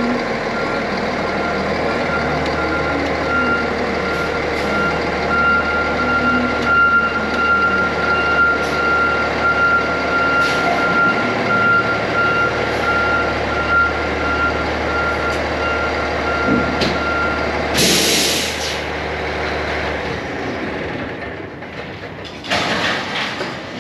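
Diesel fire engine backing up, its reverse alarm beeping over the running engine. The beeping stops, a short loud air hiss from the air brakes follows about 18 seconds in, and the engine's low hum cuts out soon after. A few knocks come near the end.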